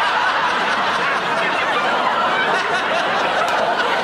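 Studio audience laughing in one long, steady wave.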